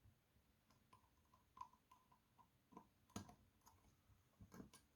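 Faint clicks and light taps of a screwdriver working the small screws on the back case of a vintage mechanical alarm clock, with a few sharper taps about three and four and a half seconds in.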